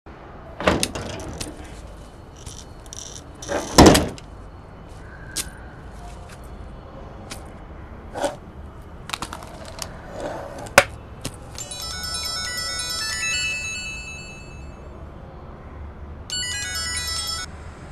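Handling noises, clicks and knocks with a drawer being opened and keys jangling, then a mobile phone's ringtone, a short stepped electronic melody, plays twice in the second half.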